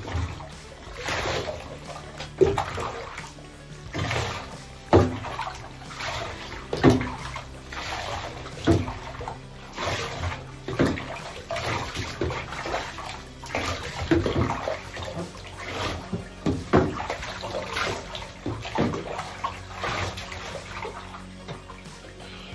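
Hands and a sponge scrubbing a wet, soapy dog in a bathtub, with water splashing and sloshing in repeated strokes, over background music.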